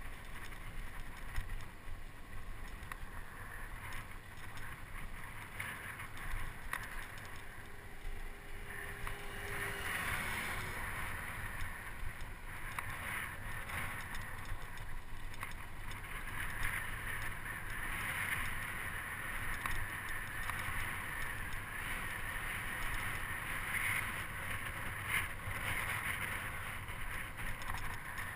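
Wind rushing over the microphone with bicycle tyre rumble on rough asphalt while riding; a steady rushing noise that grows somewhat louder about ten seconds in.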